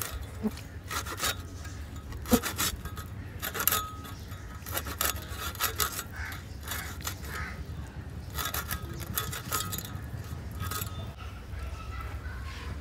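A ribbon fish being scraped against the edge of an upright iron cutting blade as it is cleaned. Short rasping strokes come at an uneven pace, roughly one a second.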